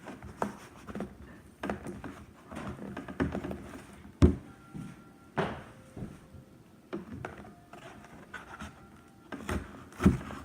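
A cardboard box being handled and cut open with a large knife: scattered knocks, scrapes and rustles, with one sharp loud thunk about four seconds in.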